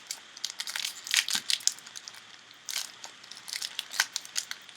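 Foil trading-card pack wrapper crinkling and tearing open in two bouts of sharp crackles.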